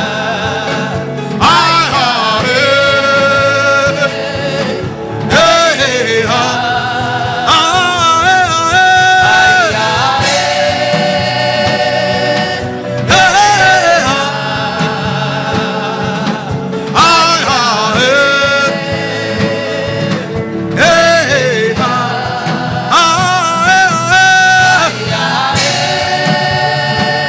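Gospel worship music: a voice sings long phrases with a wavering pitch over a steady instrumental backing, the phrases broken by short pauses every few seconds.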